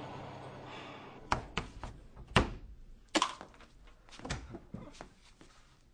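A string of irregular sharp knocks and taps, the loudest about two and a half seconds in, after a swell of sound that fades out in the first second.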